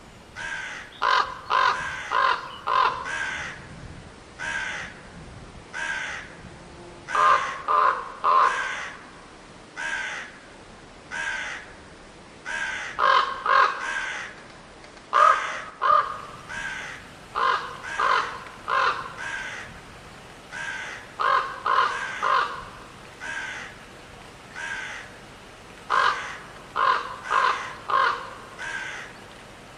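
Crows cawing over and over, in quick series of three to five harsh caws, with fainter single caws in between.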